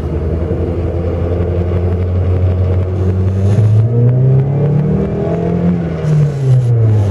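VAZ 1.6-litre eight-valve engine fitted with a bored-out 56 mm throttle body, heard from inside the cabin as the car pulls away. The revs climb about three seconds in and fall again near the end.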